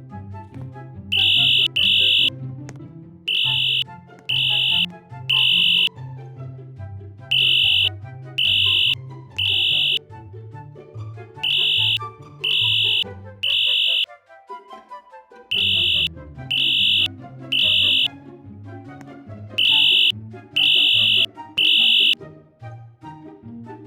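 Fire alarm horns sounding the temporal-3 evacuation pattern: three loud, high-pitched blasts about a second apart, a pause, then three again, repeating, over background music.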